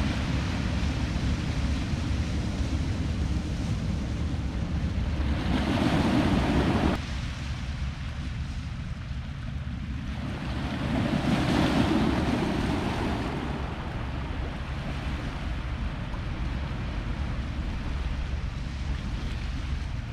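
Sea waves washing against shoreline rocks, with a steady low rumble of wind on the microphone. Twice a wave surges in louder, with a rush of spray-like noise.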